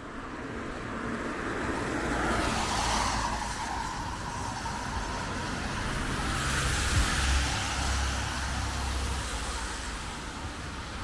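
Cars passing on wet asphalt, their tyres hissing on the wet road. One passes about two to three seconds in and another around seven seconds in.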